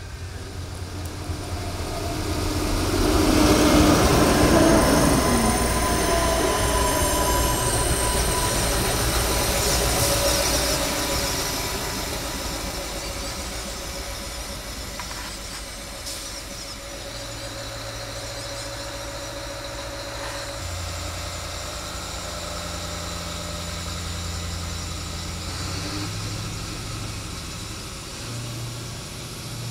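Adelaide Metro 3000-class diesel railcars on the rails: one passes close, loudest about four seconds in, its pitch falling as it goes by, followed by a steady high whine for several seconds. Later a railcar's diesel engine drones low, its note changing a few times as it pulls away from the platform.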